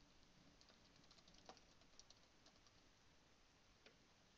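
Faint typing on a computer keyboard: a quick run of light key clicks over the first two and a half seconds, then a single click near the end.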